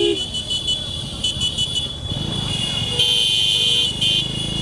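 A vehicle horn sounds and cuts off right at the start. Shrill high tones and street noise follow, with a low rumble from about two seconds in.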